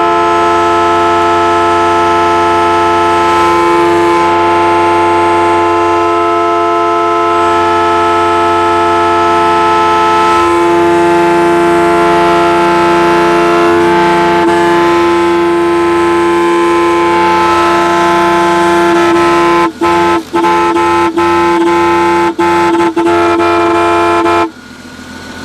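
A Jeep's horn stuck on, sounding one loud, unbroken note. Near the end it cuts out briefly several times, then stops abruptly.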